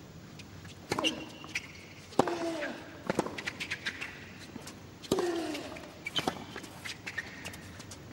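Tennis rally on a hard court: a racket strike on the ball about every second, some shots with a short grunt that falls in pitch, and brief shoe squeaks between strikes.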